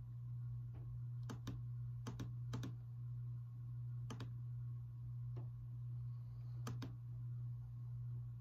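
Sparse, sharp clicks from working a computer, about ten of them, mostly in quick pairs, over a steady low hum.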